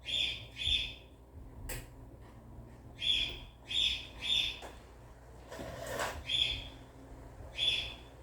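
A bird calling with short, high chirps, about seven in all, some single and some in quick pairs. A sharp click comes just under two seconds in, and a brief rustle a little after the middle.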